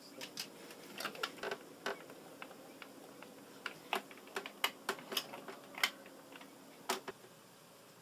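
Commodore 64 keyboard keys being pressed: about fifteen irregular clicks, ending about seven seconds in. The keys are stiff and hard to press.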